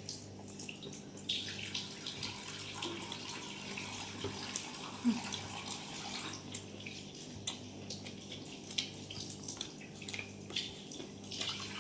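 Close-up chewing of a mouthful of mixed fried rice and chili chicken: irregular wet mouth clicks and smacks over a steady low hum.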